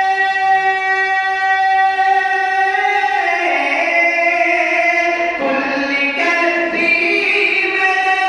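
A man singing a naat unaccompanied. He holds a long steady note for the first few seconds, then moves through a melodic run.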